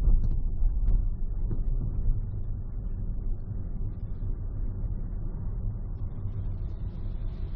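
Car driving at freeway speed, heard from inside the cabin: a steady low rumble of tyre and engine noise.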